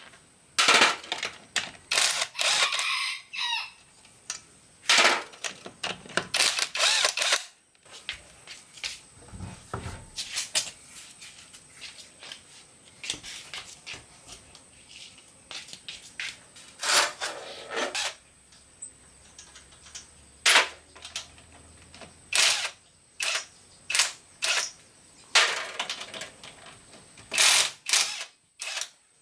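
Irregular clanks and knocks of metal tools and parts being handled, some in quick clusters.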